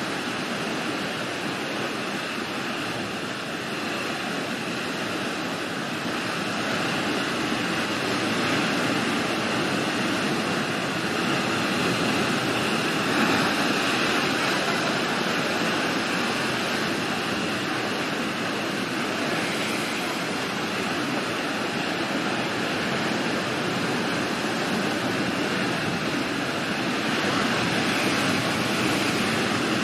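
Storm surf: heavy sea waves breaking and churning without a break, a steady rushing noise that slowly swells and eases.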